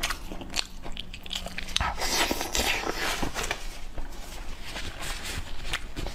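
A person chewing a mouthful of roast meat close to a clip-on microphone: irregular wet crunches and crackles, thickest in the middle.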